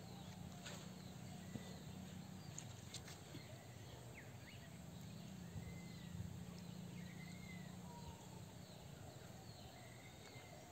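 Quiet rural ambience: faint short bird chirps now and then over a faint low steady hum.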